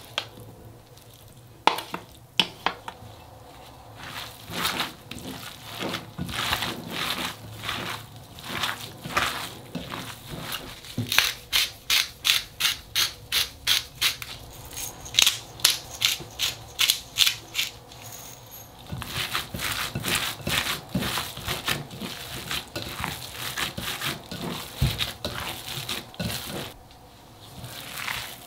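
Ground pork and beef patty mixture being squished and kneaded by a gloved hand in a glass bowl: wet squelching strokes that come in a quick, even rhythm through the middle, then a busier stretch of rubbing and mashing.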